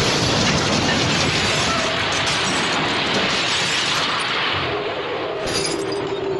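Cartoon smash sound effect: a loud crash with shattering starts suddenly, runs on for about four seconds and then thins out, with a steady low tone coming in near the end.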